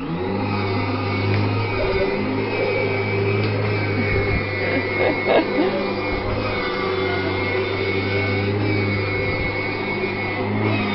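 Hoover vacuum cleaner switched on and running steadily: a motor drone with a deep hum and a high whine.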